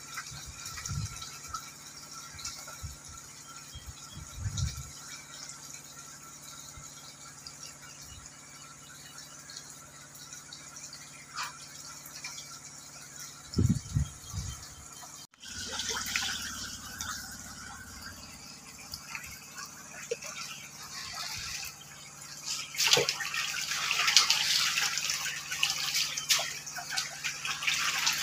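Catfish churning the surface of a pond: steady splashing and dripping water, louder and busier in the last few seconds, with a few dull thumps in the first half.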